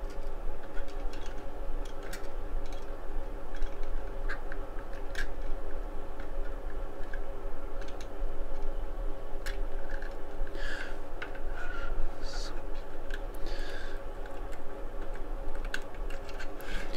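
Scattered small clicks and taps of needle-nose pliers handling wires and parts inside an opened plastic remote-control transmitter, with a few short rustles, over a steady low hum.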